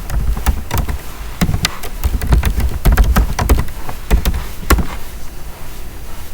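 Irregular clicks and taps of a computer keyboard and mouse, a dozen or so over a few seconds, with low thumps from the desk.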